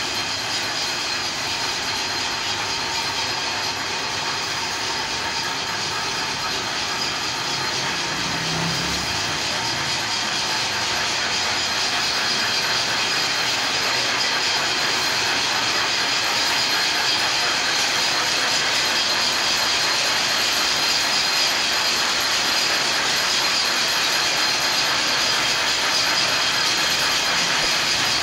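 Steady, fast mechanical clatter of workshop machinery running, a dense rattle of rapid ticks like gears and ratchets, with no pauses.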